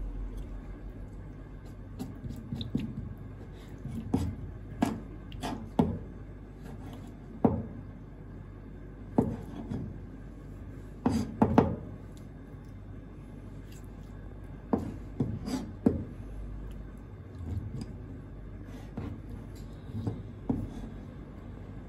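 Kitchen knife knocking and scraping on a plastic cutting board as red clam meat is cut and trimmed: irregular sharp knocks, some in quick clusters, over a steady low hum.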